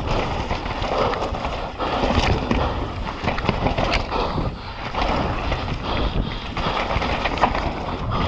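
Mountain bike descending a rough dirt and rock trail at speed: tyres rolling and skidding over dirt and stones, the bike rattling with irregular clicks and knocks, and wind buffeting the microphone.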